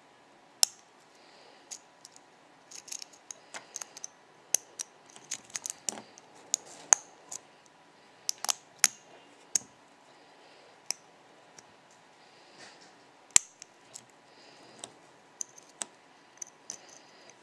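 Small irregular metal clicks and ticks of a hook pick and tension tool working the pin stack inside the keyway of a six-pin Chubb steel padlock during single-pin picking, with a few sharper, louder clicks among many faint ones.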